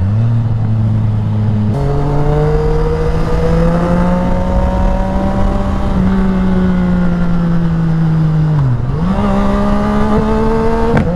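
Sport motorcycle engine running at speed on the road, its note rising and falling slowly with throttle, with a sharp dip and recovery at the start and again about nine seconds in.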